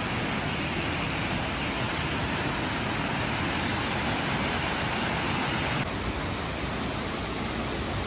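Steady rushing of Minoo Falls, a tall waterfall plunging into its rocky pool and the cascade below it. It becomes a little quieter about six seconds in.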